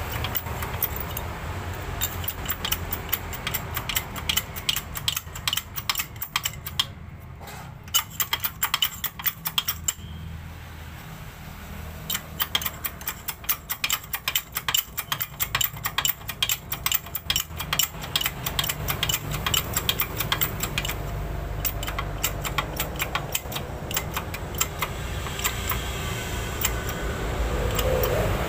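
Rapid, irregular clicking and ticking of metal parts, in runs with a short pause about ten seconds in, over a low steady hum.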